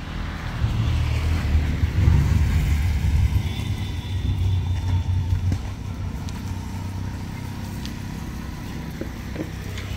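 Low engine rumble of a passing motor vehicle. It swells about half a second in and eases off after about six seconds into a steady low hum.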